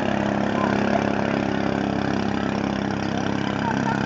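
Small engine of a wooden longboat running steadily as the boat pulls away across the river, with a few faint short high chirps over it.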